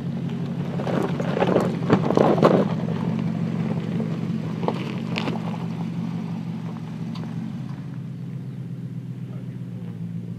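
Porsche Cayenne S's 3.6-litre twin-turbo V6 running steadily as the SUV crawls over loose gravel, its tyres crunching and crackling on the stones, loudest about two seconds in.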